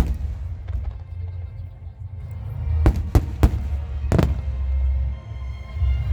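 Fireworks shells bursting with sharp booms over a continuous deep rumble: one at the start, three in quick succession about three seconds in, and another a second later. Music plays underneath throughout.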